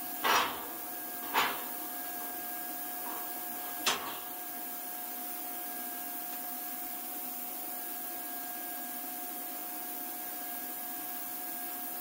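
Three sharp clanks of thin cut steel in the first four seconds as the cut-out piece is worked loose and lifted from the sheet. A steady machine hum with a fixed tone runs underneath throughout.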